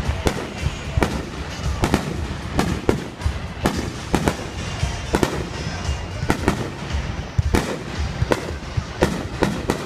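Fireworks going off: a rapid, irregular string of sharp bangs and pops, one or two a second, over continuous crackling.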